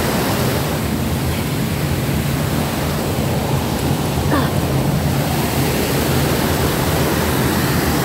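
Waterfall and stream water rushing steadily.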